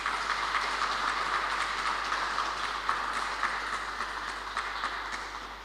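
Audience applauding a reading, an even patter of many hands clapping that tapers off near the end.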